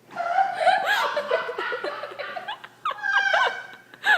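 A person laughing in quick, broken bursts that rise and fall in pitch.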